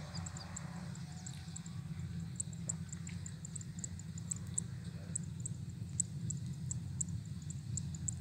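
Low, steady rumble of a distant Kubota DC-93 combine harvester's engine running across the rice field, with short high chirps a few times a second over it.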